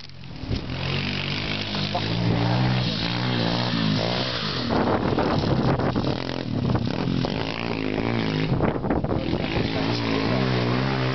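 Mini bike's small engine running, its revs rising and falling in waves as it is ridden.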